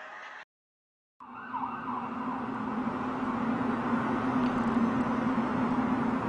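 A fading multi-tone sound cuts off abruptly into about a second of dead silence. Then a steady low hum over a rushing noise rises and holds: one of the unexplained droning 'strange sounds'.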